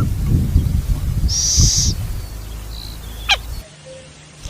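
Owl calling in a nature recording; the calls stop a little over three and a half seconds in.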